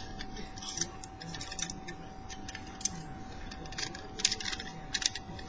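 Lever pick and tension wrench working inside a four-lever padlock: irregular small metallic clicks and ticks, some in quick clusters, as the levers are lifted and the wrench turned.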